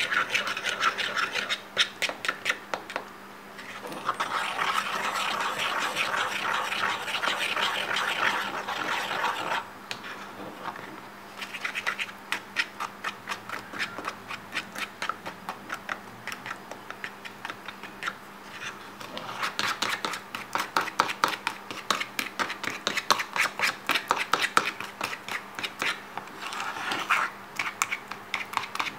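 Metal spoon stirring breadcrumbs, seasoning and egg in a plastic bowl: quick scraping and clicking of the spoon against the bowl, in fast spells with a quieter stretch in the middle. The mixture is being worked from dry crumbs into a wet batter.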